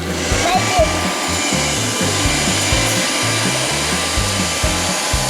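Gutrend 110 Pet robot vacuum cleaner switching on right at the start and running steadily, its suction fan and brushes making a constant noise with a faint high whine, over background music.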